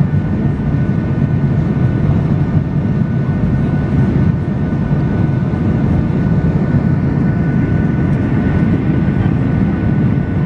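Jet airliner heard from inside the passenger cabin: a steady, loud rumble of engines and rushing air, with a thin steady whine running through it.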